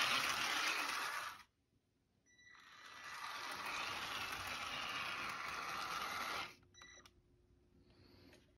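Battery-powered HO scale model streetcar running along the track, its small electric motor and gearing giving a steady mechanical whirr. It goes quiet about a second and a half in, builds back up from about two seconds in, runs steadily until about six and a half seconds in, then fades, with a few faint clicks near the end.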